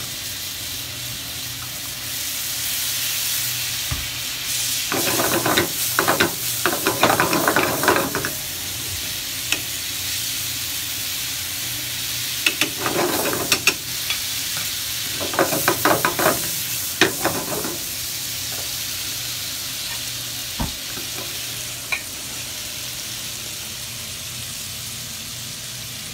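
Shrimp sizzling steadily in hot fat in a frying pan, with three spells of a utensil scraping and clattering against the pan as they are stirred and turned, about five, thirteen and sixteen seconds in.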